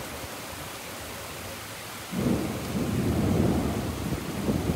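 Driving rain hissing steadily. About two seconds in, a roll of thunder breaks in suddenly and rumbles on, loudest about a second after it starts.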